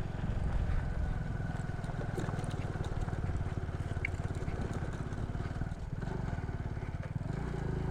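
Motorcycle engine running under load, pulling in a low gear up a steep, rough climb. The engine note changes about seven seconds in.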